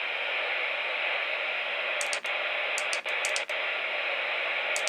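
Steady radio static from a NOAA weather radio receiver, a hiss with no voice on it, broken by a few very short dropouts.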